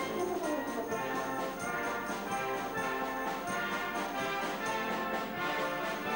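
Brass band playing, with a euphonium soloist in front; many brass instruments sound together in steady, sustained chords.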